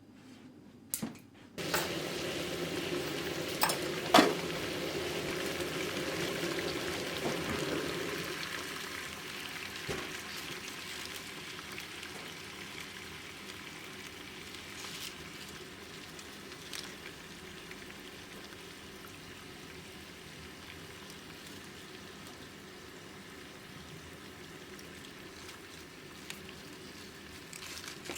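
Sizzling in a hot pan that starts suddenly about two seconds in, stays strong for several seconds and then slowly dies down, with a sharp clack of utensil on pan about four seconds in.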